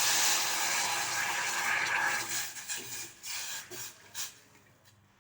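Water being poured into a cooking pan: a steady pouring splash that tails off after about two and a half seconds, followed by a few short last splashes.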